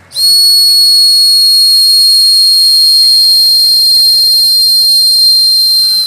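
A training whistle blown in one long, loud, steady high note for about six seconds, dropping in pitch as the breath runs out at the end. It serves as a conditioned signal to call animals.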